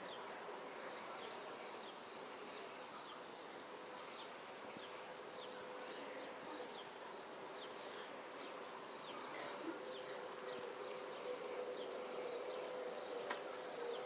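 A steady buzzing hum, like insects, with a run of short, high, falling chirps about two or three a second. A single sharp click comes near the end.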